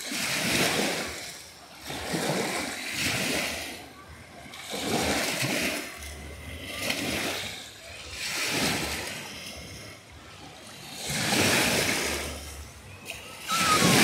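Small waves on Lake Ontario breaking and washing up over a sandy beach, in a series of rushing surges that swell and fade every couple of seconds, the loudest near the end as the foam runs up close.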